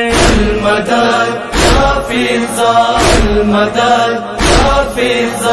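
Voices chanting a noha refrain in unison over steady chest-beating (matam) thumps, four beats about a second and a half apart.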